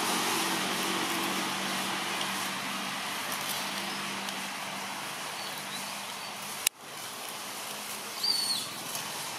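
Forest ambience: a steady hiss of outdoor background noise with a low hum underneath. A sharp click cuts through about two-thirds of the way in, and a short high bird chirp sounds near the end.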